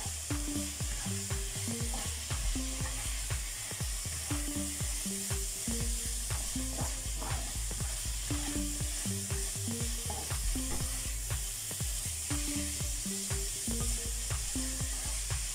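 Dried anchovies, chilli and shallots sizzling in oil in a stainless-steel pan, with a spatula stirring and scraping the pan bottom in frequent short strokes.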